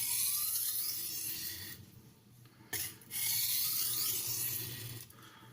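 Steel blade of a Tramontina Professional kitchen knife drawn along a vintage NILES silicon carbide sharpening stone: two long grinding strokes with a short pause between them.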